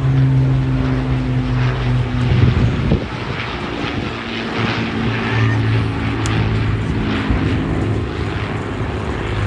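Propeller-driven aircraft engine droning as it flies past, its pitch dropping about two and a half seconds in.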